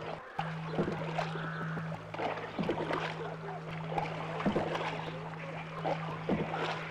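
Paddle strokes in water from a small rowed boat, one splash roughly every two seconds, over a steady low hum.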